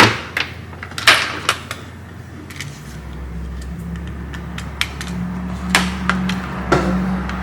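Sharp clicks and knocks from a USB-C charger plug and cable being handled and pushed into a laptop, a few close together at first and two more near the end, over a steady low hum.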